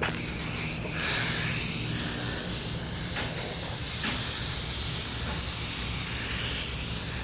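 Aerosol can of trim black spray paint hissing as it sprays in long passes, with a short break or two partway through.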